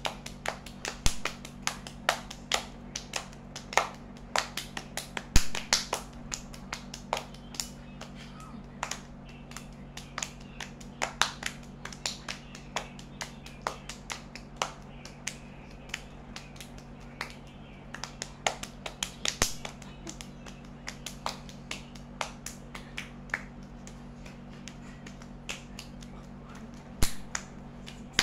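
Two people clapping their hands in a fast hand-clapping game: an irregular run of sharp claps, a few a second, over a steady low hum.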